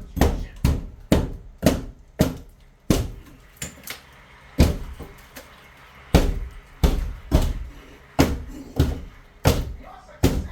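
Repeated hammer blows against a wall being demolished: sharp knocks about two a second, each with a short ring-out, easing off in the middle to a few lighter knocks before picking up again.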